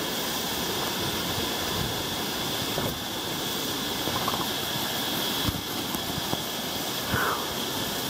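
Waterfall and its rushing water making a steady, even roar, with a light knock now and then.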